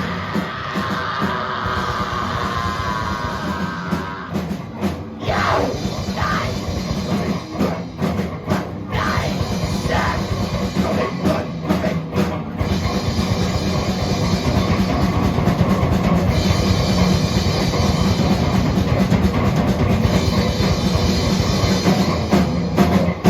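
Live heavy rock instrumental played on two bass guitars and a drum kit, with no vocals. The first half goes in stop-start hits with short breaks, then the band settles into an unbroken, fast drum-driven section.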